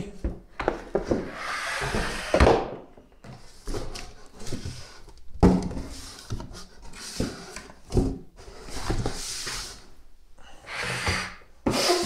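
Cardboard packaging scraping and rustling as the plastic body of a pond UV clarifier is slid out of its box and set down, with several knocks of the housing against the box and tabletop.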